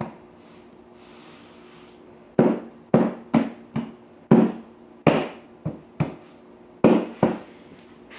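Hands slapping rigid-core luxury vinyl planks down onto the subfloor to seat their click-lock joints: about ten sharp thumps in an uneven rhythm, after a single knock at the start.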